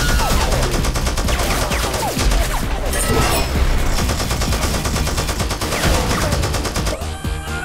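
Sustained rapid automatic gunfire, a movie sound effect for a robot's twin guns, with many shots a second.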